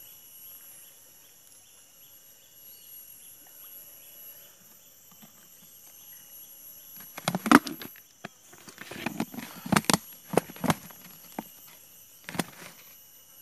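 Steady high-pitched insect chirring in the background. In the second half, close knocks and rustles from handling near the microphone, loudest about a second and a half after the halfway point.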